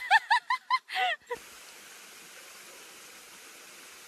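Horse whinnying: the fluttering tail of a neigh, a quick run of about six short high notes that ends about a second in. A steady hiss follows.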